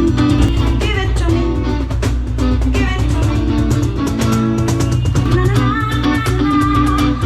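Band music playing loudly: a steady drum beat under a sustained bass, with a guitar and a singing melody line on top.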